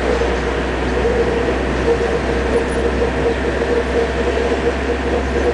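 Car driving along at low speed, its engine and road noise heard from inside the car as a steady low rumble with a constant drone.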